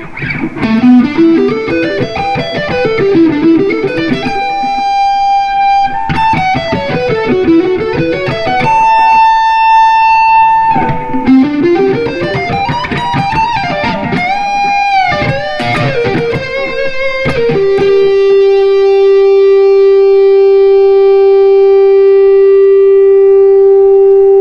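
Replica Gibson Les Paul Custom electric guitar played through a Marshall MG100HFX head and 4x12 cabinet: fast single-note runs up and down the neck and a few held notes with vibrato. Then one note is held for about seven seconds, a long sustain that the luthier credits to the fret leveling.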